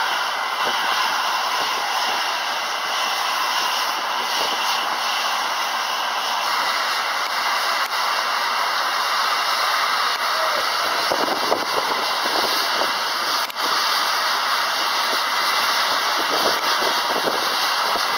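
High-pressure water jets from a semi-automatic nozzle head blasting the fins of an air fin condenser: a loud, steady hiss. There is a brief break with a click about thirteen seconds in.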